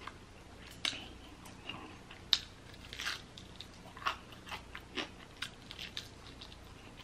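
Close-miked eating of a Popeyes fried chicken drumstick: biting and chewing, heard as irregular short clicks and smacks every half second or so.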